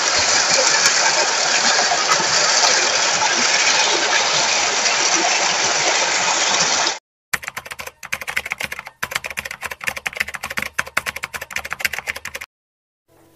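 Fast-flowing stream water, a steady loud hiss that cuts off suddenly about seven seconds in. After a short gap comes a rapid, irregular run of clicks lasting about five seconds, then quiet.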